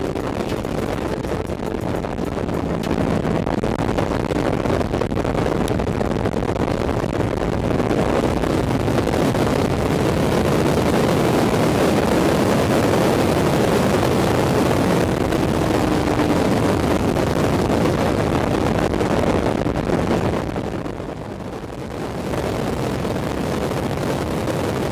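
Engine of a Kawasaki 250cc sport bike running at speed, mixed with wind rushing over the microphone. The level drops for a couple of seconds about twenty seconds in, then picks up again.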